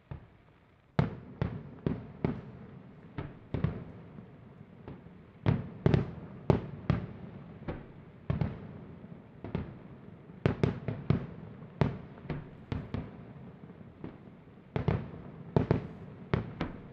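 Aerial firework shells bursting in quick succession: a string of sharp bangs, irregularly spaced and sometimes several a second, starting about a second in.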